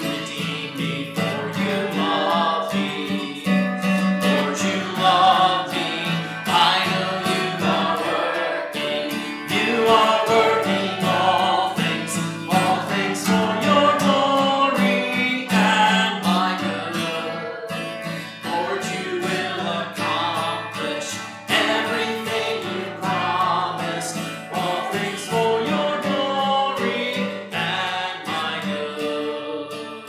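Worship song sung by a man and a woman to their own strummed acoustic guitars, with effects added to the recording to bring in the sound of more voices and instruments.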